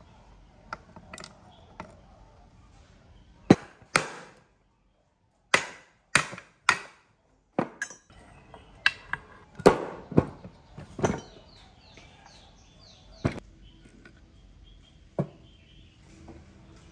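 Sharp metallic knocks and clinks of engine parts being handled during the teardown of a motorcycle engine's crankcase and gearbox: about a dozen separate hits with short pauses between them.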